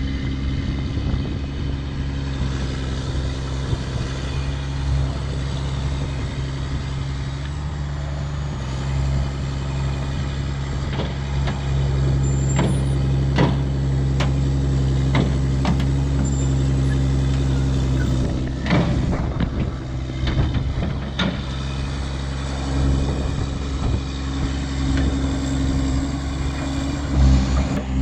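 A large engine running steadily, its note stepping up about a third of the way in, with a series of sharp knocks and clanks through the middle.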